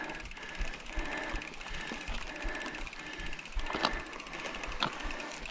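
Bicycle rear-hub freewheel ticking as the wheel turns without pedalling, with a couple of sharp knocks about four and five seconds in.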